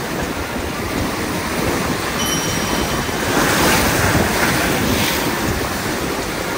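Sea waves breaking and surging against a rocky shore, with wind buffeting the microphone. One wave crashes louder about halfway through.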